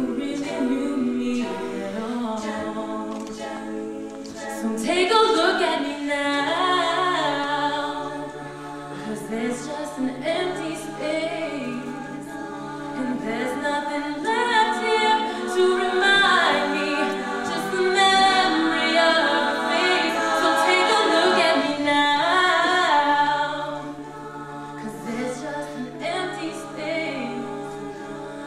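All-female a cappella group singing live: a miked solo voice over the group's sustained backing harmonies and held low notes, with no instruments. It swells louder about five seconds in and again through the middle.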